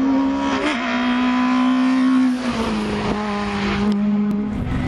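Race car engine running at high revs as it climbs the hill, its note held steady and dipping slightly a few times.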